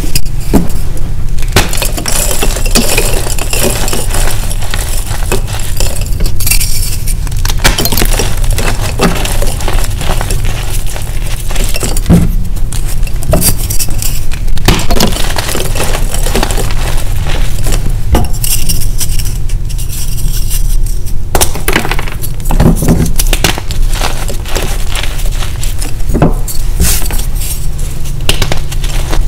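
Egg-shaped gym chalk stones crunching and crumbling as a hand squeezes and presses them, a dense run of dry crackles and snaps, over a steady low hum.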